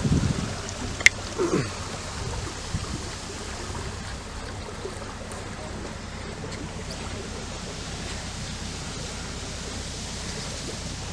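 Steady rush of water and wind past a moving river boat, with a sharp click about a second in.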